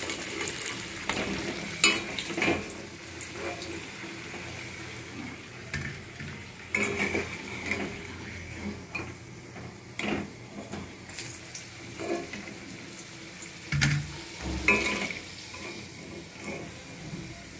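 Halved potatoes frying in oil in a pan with a steady sizzle, while a spatula scrapes and knocks against the pan at irregular moments as the fried potatoes are stirred and lifted out.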